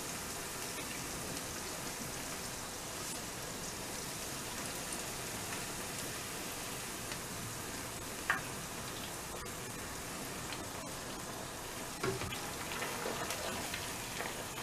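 Vegetable Manchurian balls deep-frying in hot oil on medium heat: a steady sizzle. There is a brief knock about eight seconds in, and the sizzle turns a little louder and busier near the end.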